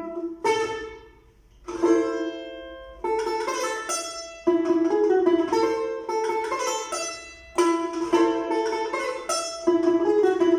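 Russian balalaika playing a melody of plucked and strummed notes, in phrases with brief pauses between them.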